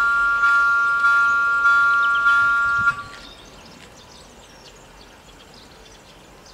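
Level-crossing warning bell ringing with an even strike about every 0.6 s, cutting off about three seconds in as the crossing deactivates after the train has passed. After that, only a quiet outdoor background with faint high chirps.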